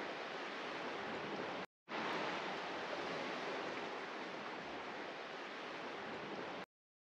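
Steady rushing noise of sea surf at the foot of a cliff. It drops out for an instant a little under two seconds in and cuts off abruptly near the end.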